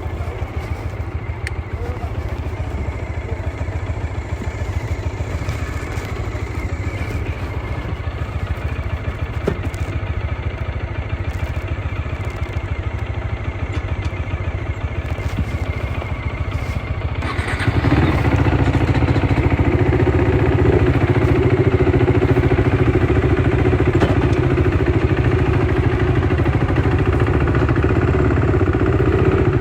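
KTM RC 390's single-cylinder engine running with a steady low rumble. About two-thirds of the way in it gets louder and a steady, higher engine note comes in and holds.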